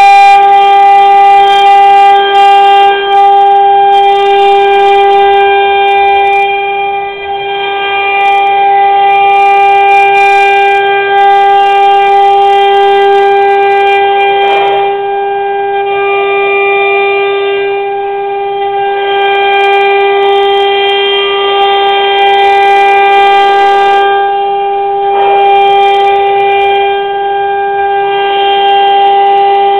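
CNC router spindle running at high speed: a steady, unchanging high-pitched whine with overtones. Rougher cutting noise comes and goes as the tool mills.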